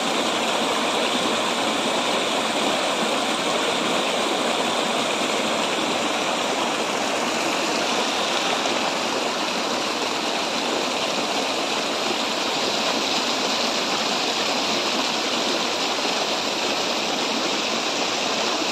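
Water of a shallow rocky stream running and splashing over small cascades between boulders, a steady, even sound throughout.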